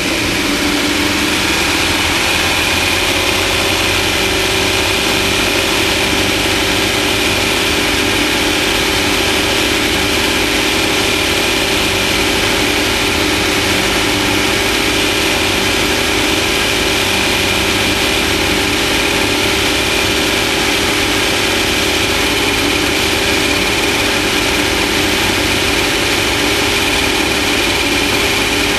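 Off-road race vehicle's engine running steadily at constant revs, over a continuous rush of wind and road noise. The pitch rises slightly in the first second or two, then holds.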